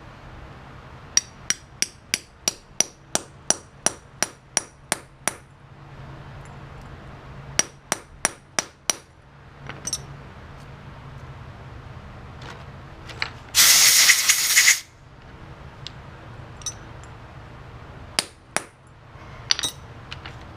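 Hammer striking a setting tool to drive a lead anchor down into a drilled hole in concrete: a quick run of about a dozen sharp metallic strikes, later a handful more. Near the middle, a loud hiss lasts about a second.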